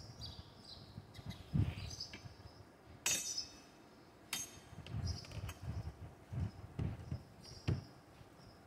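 Clinks, knocks and sharp clicks of a portable trim router and its metal base plate being handled and fitted together on a wooden workbench; the router is not running.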